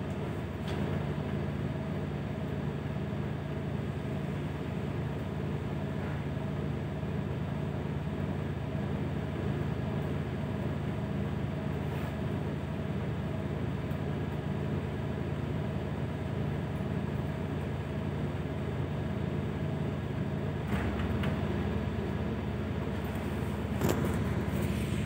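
ED4M electric multiple unit running along the line: a steady hum with constant tones over wheel and track noise. The low rumble grows stronger about 21 seconds in, and a few short knocks come near the end.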